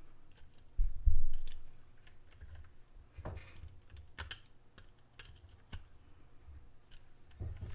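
Small scattered clicks and taps of hands threading a wheel nut onto an RC truck's rear wheel hub, with a couple of low handling thuds, the loudest about a second in.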